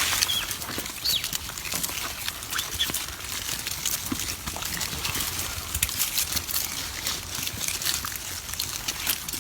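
Outdoor crackling and rustling with many short sharp clicks, broken by a few brief high squeaks from monkeys.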